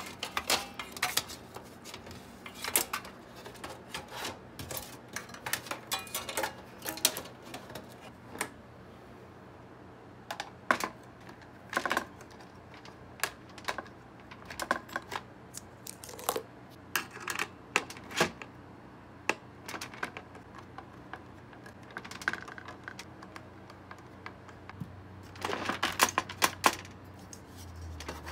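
Irregular plastic and metal clicks and clacks of hands taking apart a Dell OptiPlex 790 desktop: power-supply cable connectors being unplugged inside the steel case and the CPU heatsink fan being unclipped from the motherboard. A quick flurry of clicks comes near the end.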